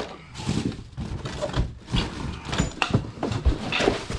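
Items being handled and rummaged through in boxes: a series of irregular knocks and clunks with rustling in between.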